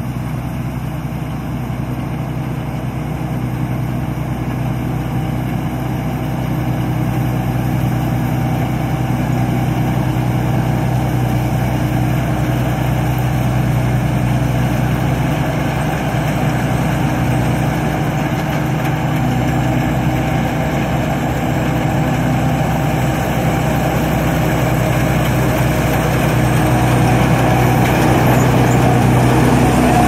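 Rice combine harvester's diesel engine running steadily, growing louder as the machine approaches and is loudest as it passes close near the end.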